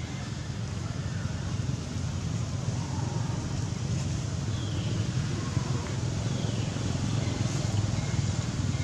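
Steady low outdoor rumble, with a few faint, short, high chirps scattered through it.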